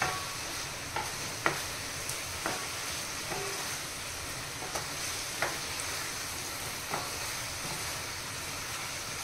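Wooden spatula stirring and scraping thickened carrot halwa in a stainless steel pan over a gas flame, with a steady sizzle and irregular sharp knocks as the spatula strikes the pan, about nine in all.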